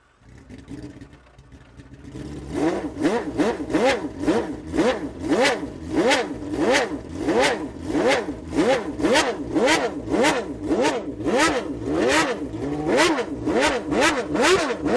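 Ferrari engine revving, its pitch climbing and dropping back again and again at about two revs a second. It comes in quieter for the first two seconds, then runs louder with an even beat.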